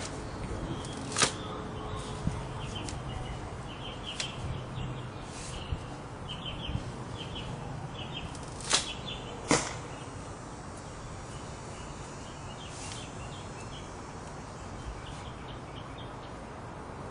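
A recurve bow being shot. The bowstring snaps sharply as an arrow is released about a second in, and two more sharp cracks come close together about halfway through.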